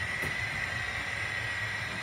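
Hornby Class 67 OO gauge model locomotive with TTS sound running along the track, its small onboard speaker playing a recorded diesel engine sound. A steady high-pitched whine sits over a low, uneven engine rumble.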